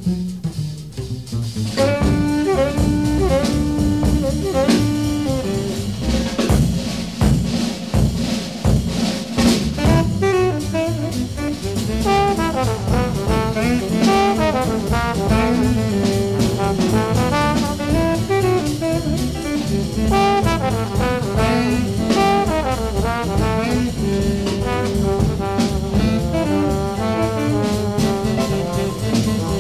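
1950s small-group jazz: saxophone and valve trombone playing over walking double bass and drum kit. The horns come in about two seconds in, after a quieter passage.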